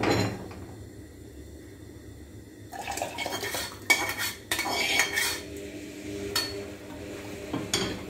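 A click as the gas stove's burner knob is turned on. Then metal cookware clanking and scraping as a small pan knocks against the rim of an aluminium pressure-cooker pot and its tempering water is poured into the dal. A ladle clinks against the pot near the end.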